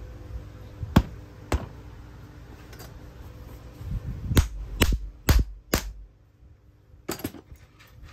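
Sharp metal knocks and clacks from handling a Nikko 24 V starter motor over a steel workbench: single knocks about a second in and half a second later, four in quick succession around the middle, and a last pair near the end. A low steady hum underneath stops about six seconds in.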